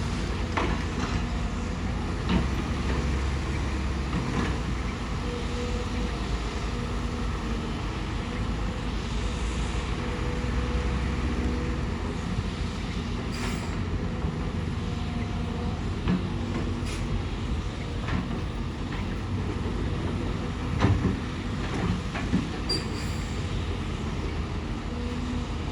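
Hydraulic excavator's diesel engine running steadily, with a few short sharp knocks over it, the loudest about 21 seconds in.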